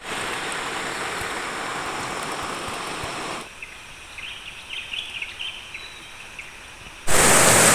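Rushing river water, a steady rush that drops away suddenly a little over three seconds in to a quieter stretch with a few high chirps, then comes back much louder near the end.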